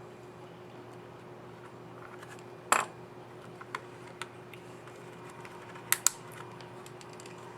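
Asus ROG Zephyrus G14 GA402RJ laptop keycap clicking on its scissor mechanism as it is snapped in place and pressed: a few separate sharp clicks, the loudest about a third of the way in, then lighter ones and a quick double click a little past the middle.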